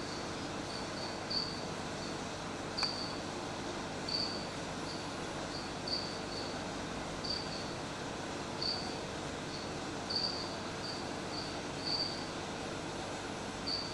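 Cricket chirping: short chirps at one steady high pitch, irregularly spaced about every half second to second and a half, over a steady background hiss. A single sharp click about three seconds in.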